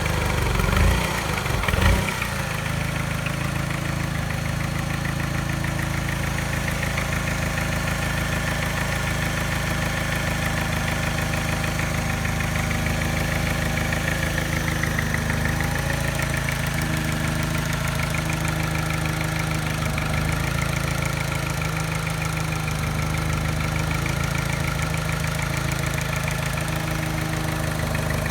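Mini engine idling with a mild tap and a very slight miss. The tap remains despite a new timing chain, tensioner and piston rings. Two brief louder bumps come in the first two seconds.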